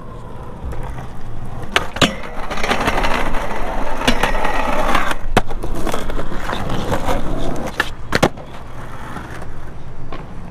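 Skateboard wheels rolling over rough asphalt, a continuous gritty roll that swells through the middle, broken by several sharp clacks of the board.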